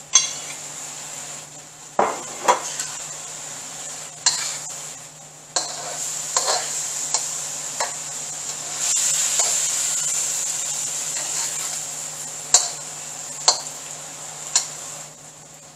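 Salmon chunks and vegetables sizzling in a hot wok while being stirred and tossed with metal tongs: a steady sizzle with about a dozen sharp clinks and scrapes of the tongs against the wok and plate. The sizzle swells for a couple of seconds around the middle.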